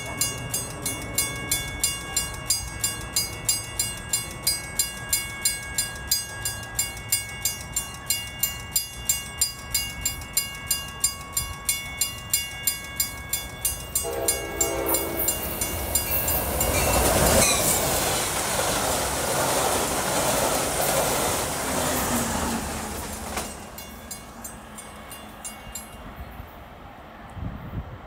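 Level-crossing warning bell ringing steadily at about two strokes a second; about halfway through, an approaching Amtrak Siemens Charger passenger locomotive sounds its horn, followed by a louder horn blast and the growing noise of the oncoming train.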